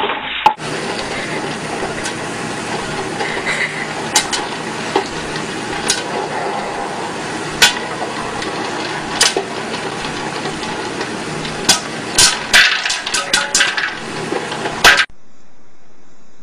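Electric popcorn popper running with a steady hiss while kernels pop inside its clear plastic dome: scattered sharp pops, coming faster near the end. About a second before the end the sound cuts off suddenly.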